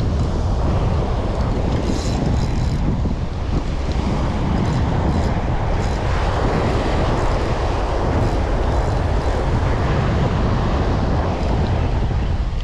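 Wind buffeting the microphone in a steady low rumble, with surf washing up the beach behind it.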